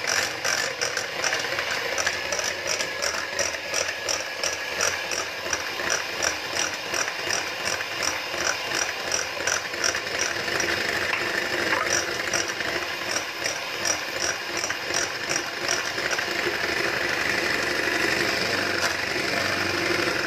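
Electric hand mixer running steadily, its beaters whisking beaten eggs and melted butter in a glass bowl, with a quick regular ticking.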